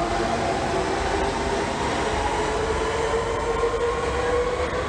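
London Underground Central Line 1992 Stock train pulling out of the platform, its traction motors giving a whine that slowly rises in pitch over a steady rumble.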